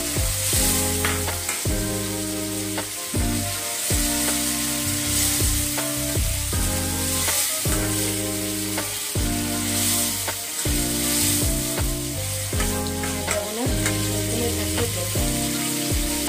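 Potato-and-tomato curry sizzling and bubbling in a wide metal pan as it is stirred with a spatula, just after water has been added. Background music with steady stepping bass notes plays throughout.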